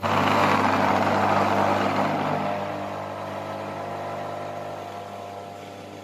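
Washing-machine single-phase capacitor-run AC motor switched on at 230 V mains: it starts suddenly and runs with a steady hum. A rushing noise is loudest at switch-on and dies down over the next few seconds.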